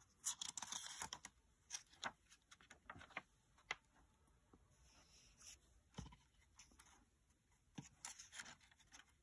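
Faint paper rustling and soft taps as a picture book's page is turned, with a longer rustle near the start and another about eight seconds in.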